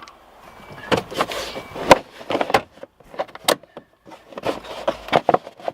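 A run of irregular knocks and clicks from parts being handled, the sharpest about two seconds in and again about three and a half seconds in, with faint rustling between.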